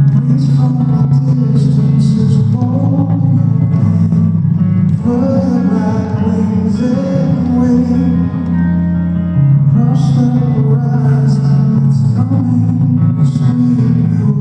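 Live rock band playing: electric guitar over sustained low notes, with some singing.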